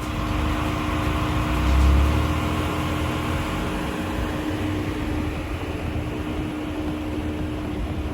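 Hyundai Veloster N's 2.0-litre turbocharged four-cylinder running with a steady low rumble and a constant hum. It swells briefly about two seconds in, then holds steady.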